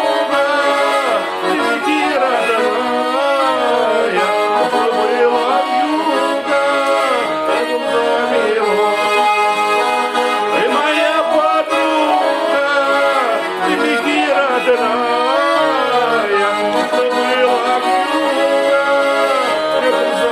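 Accordion playing a folk-style melody over sustained chords, with gliding, wavering notes.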